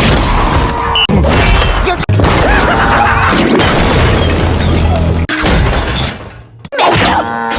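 A string of loud crashing and shattering sound effects over music, each cut off abruptly after a second or a few seconds, with one fading out near the end before another begins.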